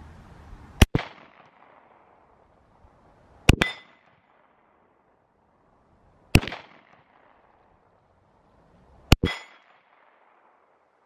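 Four 10mm pistol shots from a long-slide Glock 40, evenly spaced about three seconds apart. Each is followed a split second later by a smaller second report, and a short ringing tone comes after the second and the fourth.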